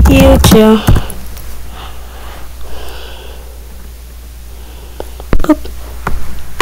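A person's voice humming a couple of held, sliding notes at the start, then soft breath noises and a short vocal sound over a steady low electrical hum.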